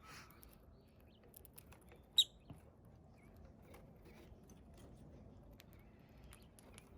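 Pet rosy-faced lovebirds giving soft, scattered chirps and small clicks, with one short sharp chirp about two seconds in as the loudest sound.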